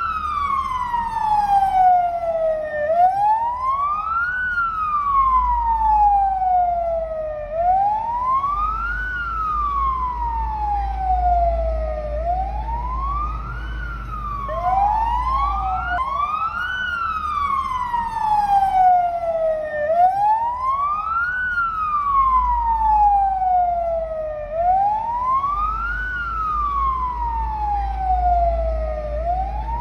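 Emergency vehicle siren wailing, its pitch climbing quickly and sliding slowly back down about once every four and a half seconds, with a second siren fainter behind it. A low rumble runs underneath.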